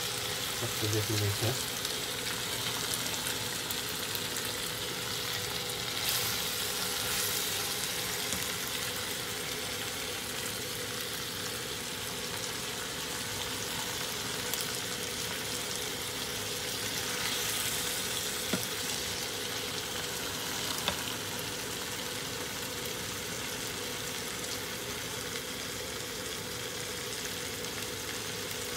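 Chicken, potato and capsicum curry sizzling steadily in a pot on a stove burner.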